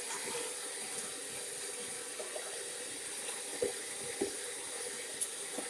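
Electric hand mixer running steadily as its beaters cream butter and sugar in a bowl, with a few short knocks.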